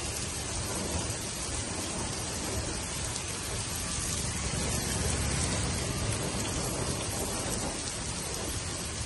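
Heavy monsoon rain pouring onto a wet road and pavement, a steady hiss. A low rumble swells and fades about four to six seconds in.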